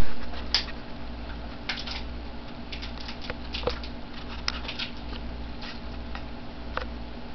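A child slowly chewing a hard taco shell: scattered crisp crunches, a few at a time at irregular spacing, over a steady low hum. A brief low bump at the very start.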